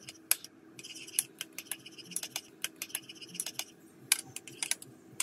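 Metal spoon stirring a thick yogurt and mayonnaise sauce in a small ceramic cup. It clinks and scrapes against the cup's sides in quick, uneven strokes.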